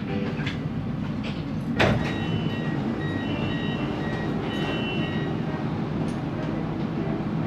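Cabin noise inside a Siemens Inspiro metro train: a steady low rumble, a sharp clunk a little under two seconds in, then short high-pitched tones coming and going.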